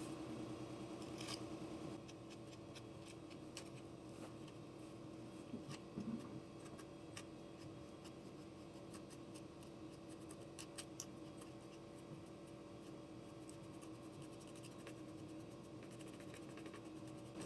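Faint small clicks, taps and scratches of hand tools working at a damaged ceramic floor tile, the loudest a short cluster about six seconds in, over a steady low hum.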